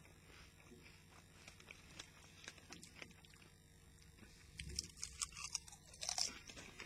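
Crisps being chewed: soft, scattered crunching, sparse at first and with more frequent crackles from about four and a half seconds in.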